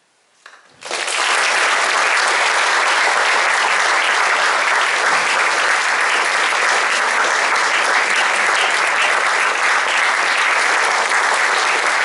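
Audience applauding at the end of a stage performance. A clap or two comes first, then the full applause breaks out about a second in and carries on steady and loud.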